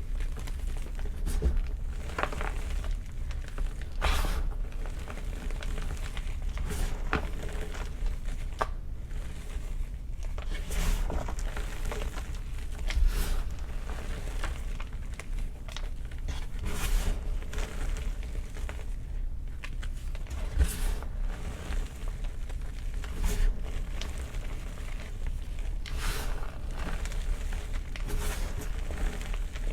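Blocks of gym chalk crushed and crumbled, with irregular crunching and crackling throughout.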